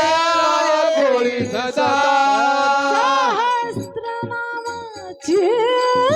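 Marathi abhang, a Varkari devotional song, sung by a woman in long held notes that bend in pitch, over steady instrumental accompaniment.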